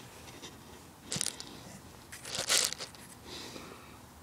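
Rustling, scraping handling noise: a brief one about a second in, then a louder one lasting about half a second midway.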